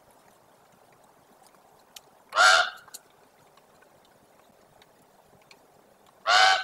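Common raven giving two loud, harsh calls, one about two and a half seconds in and the other near the end.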